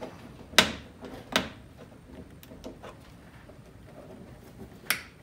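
Plastic trim removal tools prying at a car's A-pillar triangle trim to release its clips: sharp plastic clicks and taps, with louder snaps about half a second in, at about a second and a half, and near the end.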